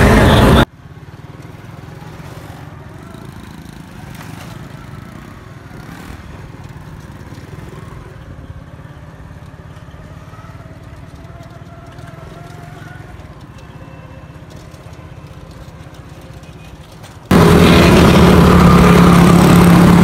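Loud steady engine drone of a motor vehicle with road and wind noise, cutting off abruptly under a second in; a faint steady low hum of distant traffic follows, and about seventeen seconds in the loud engine drone cuts back in.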